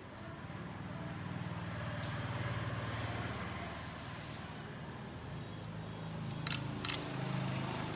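A low, steady hum that grows louder in the first half and eases off, with two short clicks near the end.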